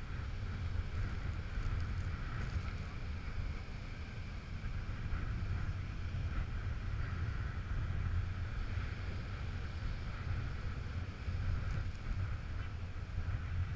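Wind buffeting the microphone as a heavy low rumble, over the steady wash of surf breaking on rocks.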